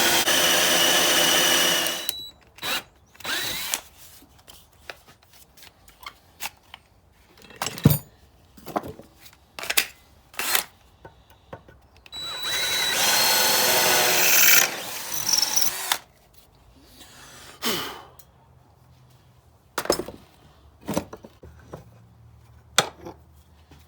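Electric hand drill boring into a broken, stripped caliper bolt on a motorcycle's rear brake caliper. It runs in two spells, one stopping about two seconds in and another of about three seconds midway. Between and after them come scattered clicks and knocks.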